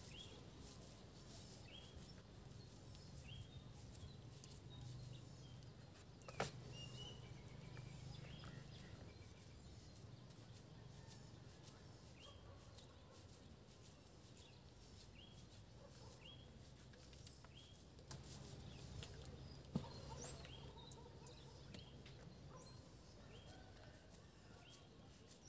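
Near silence with a faint bird giving short, rising chirps over and over, one every second or two. A few faint clicks stand out now and then.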